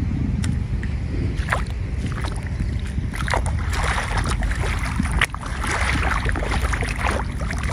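Wind rumbling on the microphone, with a steady wet hiss and short sharp steps on wet paving about once a second.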